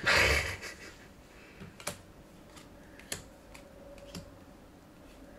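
Magic: The Gathering cards being handled and set down on a table. A short rustling swish of cards sliding comes at the start, then several light clicks about a second apart as cards tap down one at a time.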